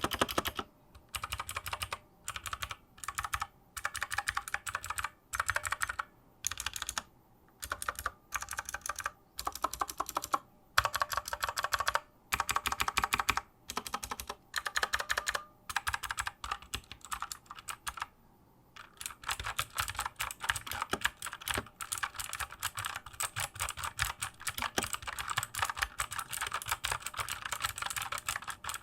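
Gamdias Hermes E3 60% mechanical keyboard with clicky blue switches being typed on. Short bursts of rapid keystrokes with brief pauses between them, then continuous fast typing from about two-thirds of the way in.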